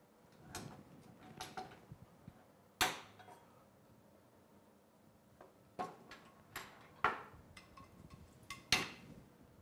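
A string of sharp metal knocks and clinks, about seven in all and the loudest about three seconds in and near the end, from an aluminium terrine mould and a kitchen knife being handled on a wooden board while a frozen parfait is turned out of the mould.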